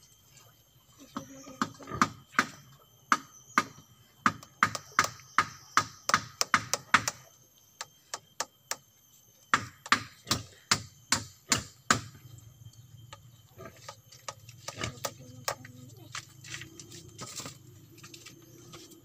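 Hammer striking nails into a wooden frame, quick sharp blows about two to three a second in two runs with a pause between them.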